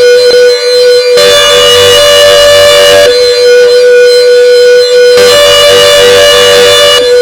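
Klaxon CS8 siren sounding during a test: a very loud, steady tone that holds its pitch without rising or falling, its sound shifting about every two seconds.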